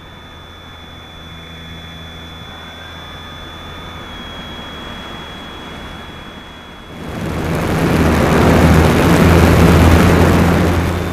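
Motor and propeller of an RC model Cessna heard from an onboard camera in flight. It starts throttled back, with a thin steady high whine, a low hum and air noise. About seven seconds in it throttles up to a loud, even rush of propeller and airflow over a strong low hum, then drops again at the very end.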